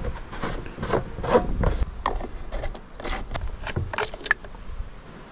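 Plastic screw caps on a gas can and a Stihl chainsaw's filler necks being twisted and handled: a run of short scraping rasps, with a few sharper clicks about four seconds in.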